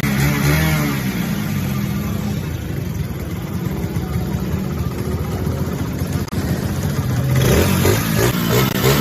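Motorcycle engine running, with a brief break about six seconds in; it comes back brighter and revs toward the end.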